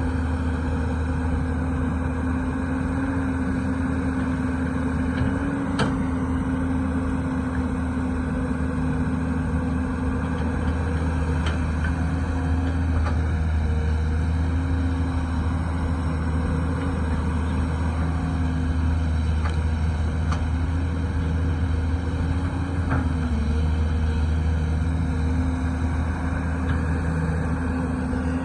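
Excavator's diesel engine running steadily under working load, its pitch dipping briefly a few times, with a few faint clicks or knocks.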